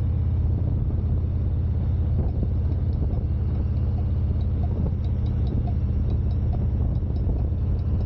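A vehicle engine running steadily with a low, even rumble, picked up by an external mic on the ride.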